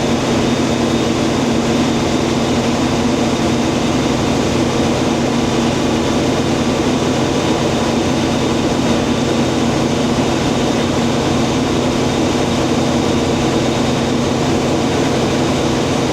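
International 1440 combine running with its header and feeder drive engaged: a loud, steady machine drone with a constant hum, the new feeder belt and pulley turning without trouble.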